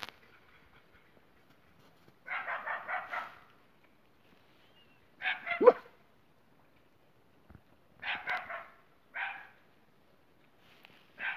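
Dog barking in five short bouts a few seconds apart. The first bout is a quick run of yaps lasting about a second, and the loudest bark comes about halfway through.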